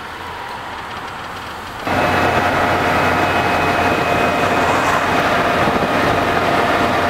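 Renault Twizy electric car heard from the cabin: a quieter steady hum at first, then, about two seconds in, a sudden change to loud steady road and wind noise at highway speed. Under it runs a steady high electric-motor whine made of several tones.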